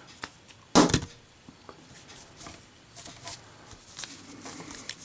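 A Zippo lighter, dropped from about two feet in a drop test, hits a hard surface once with a sharp metallic clack about a second in. Faint small clicks and handling noise follow.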